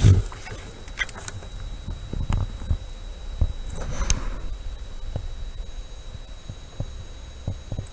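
Handling noise: scattered soft knocks and clicks over a low rumble, with a brief rustle about four seconds in and a louder knock at the start.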